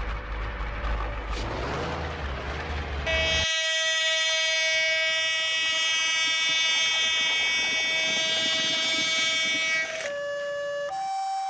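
A train rumbling along, then a long, steady train horn blast held for about seven seconds. Near the end a two-tone siren starts, alternating high and low.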